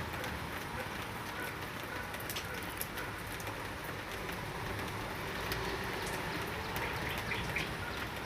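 Light drizzle falling steadily, many small drops ticking on surfaces, with a few faint bird chirps near the end.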